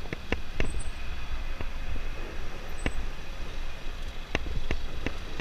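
Motorcycle ridden slowly through traffic, its engine running low under a steady rumble of wind on the helmet microphone, with a scatter of sharp clicks.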